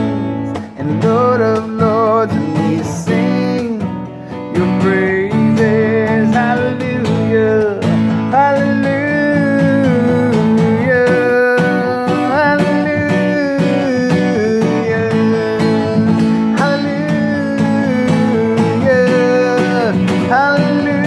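Acoustic guitar strummed steadily, with a voice singing a wavering melody over it, held notes without clear words. The playing is softer and more broken for the first few seconds.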